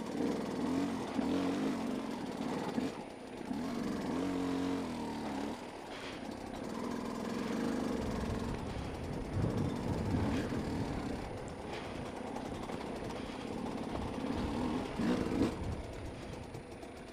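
Dirt bike engine running at low speed, its revs rising and falling as it is ridden slowly over rough lava rock, with a few knocks from the bike jolting over the rocks about halfway through.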